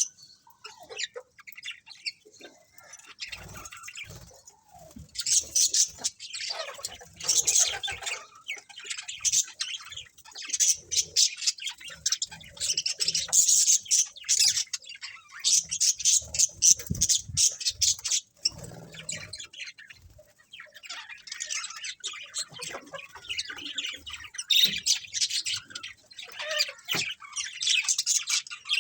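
A flock of budgerigars chirping and squawking in dense, rapid bursts of chatter, with a couple of brief lulls.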